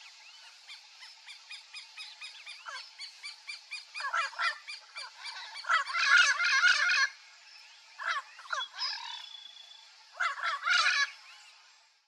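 Turquoise-fronted parrots (Amazona aestiva) calling. A quick run of short repeated notes builds into bursts of harsh squawking chatter. The loudest burst comes about six seconds in, and another comes near the end.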